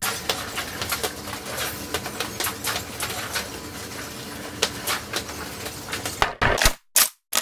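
A rapid jumble of many short sound effects played back to back at ten times normal speed, crowded into a dense stream of clicks, ticks and noise. Near the end it breaks into a few separate short bursts.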